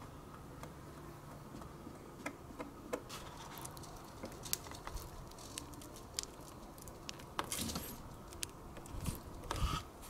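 Faint handling noises of plastic: scattered light clicks and rubbing as a corrugated plastic drain hose is pushed onto a washing machine's drain outlet. There are longer scraping spells about seven and a half seconds in and just before the end.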